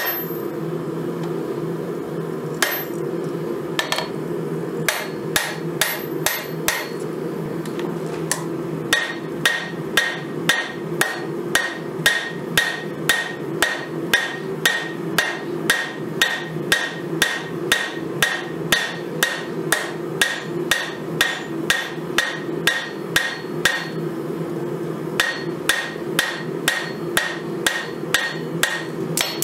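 Hammer striking red-hot 5160 steel on an anvil to forge a knife blade. A few scattered blows come first, then steady blows at about two a second, each with a short metallic ring. A brief pause comes a few seconds before the end, then the blows resume.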